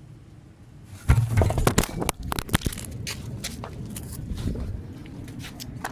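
A sudden heavy thump about a second in, then a run of knocks, clicks and rubbing close to the microphone: the recording device being knocked and handled while the setup is put back together.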